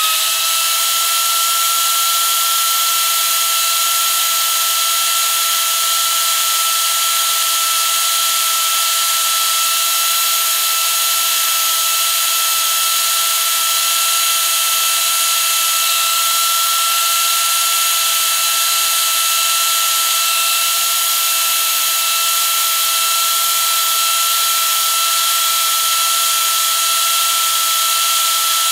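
Arbortech Mini Pro power carver running at full speed with a steady high-pitched whine, its spinning cutter plunging into a wooden board to carve rows of rounded grooves.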